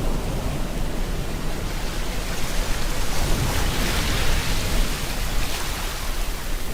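Steady rain mixed with ocean surf over a deep low rumble, with the hiss of a wave washing up swelling from about two and a half seconds in and easing off by five.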